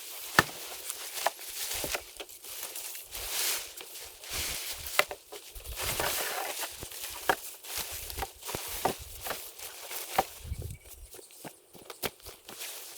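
Footsteps walking, irregular crunches and clicks underfoot.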